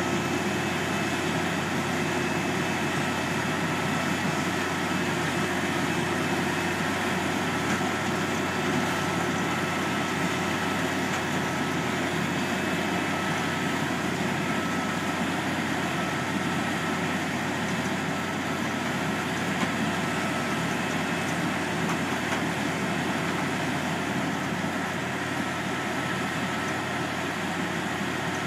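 Steady drone of heavy farm machinery running together: a sugar beet harvester unloading beets from its elevator into a truck's trailer, with a tractor and trailer running alongside.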